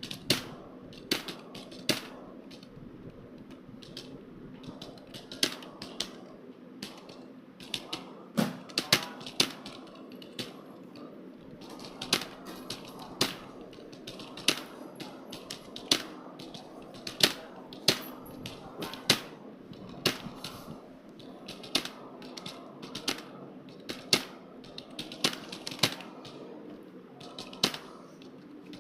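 Someone typing on a computer keyboard: keys clicking irregularly, with sharper, louder strokes every second or so over a faint steady hum.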